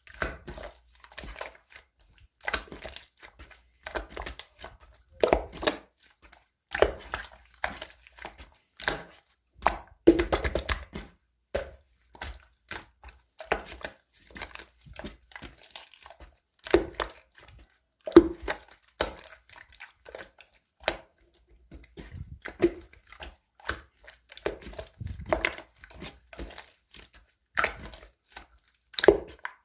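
Irregular clicks, knocks and crinkling, like objects or material being handled close by, with a few louder knocks now and then.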